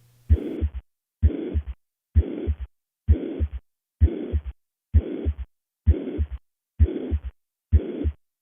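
Recorded heart sounds of mitral regurgitation: nine beats a little under a second apart. Each beat is a low thump followed by a murmur that holds an even loudness through systole up to the next heart sound, the uniform holosystolic shape of mitral regurgitation.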